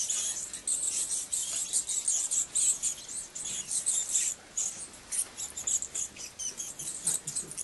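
Roosting colony of greater mouse-eared bats chattering: a dense, irregular stream of high-pitched squeaks from many bats at once.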